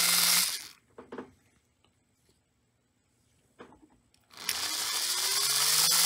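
Williams reproduction Lionel 381E build-a-loco style motor running on test power. It stops about half a second in. A few short clicks come during the pause. About four seconds in it spins up again with a whine rising in pitch. This is the motor being cycled through its reverse unit, which is working.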